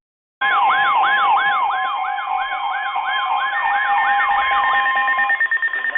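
Weather alert radio alarms sounding together, starting suddenly: a siren-like tone that sweeps down in pitch about three times a second, over two steady alert tones. Near the end the sweeping and the lower tones stop, and a higher steady tone with fast ticking carries on.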